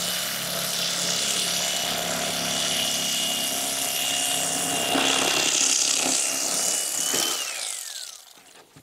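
Electric fillet knife running steadily with a high motor whine as it slices a striped bass fillet off the skin; about seven seconds in the whine falls in pitch and fades as the knife is switched off and spins down.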